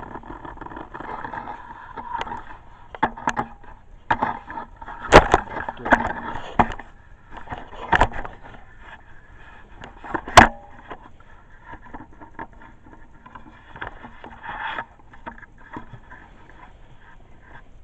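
Ice-fishing gear being handled: scraping and irregular knocks, with the loudest sharp knocks about five, eight and ten seconds in.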